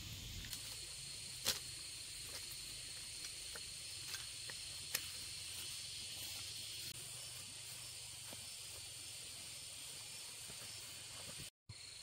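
Steady high-pitched insect drone, with a few sharp clicks, the loudest about one and a half seconds in and another near five seconds. The sound cuts out briefly near the end.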